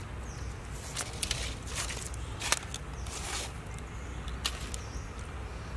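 Scattered rustles and a few sharp clicks over a low steady rumble, with the loudest click about two and a half seconds in.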